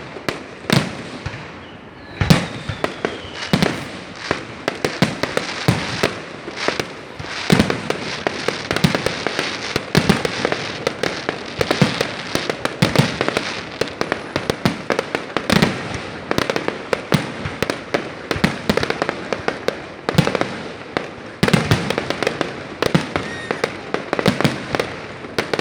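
Fireworks display: shells bursting in quick, irregular succession, loud bangs over a continuous crackle.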